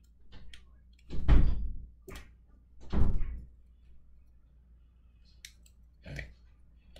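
Handling noise from working small model pieces at a desk: a few light clicks and two louder, dull thumps, about a second and three seconds in.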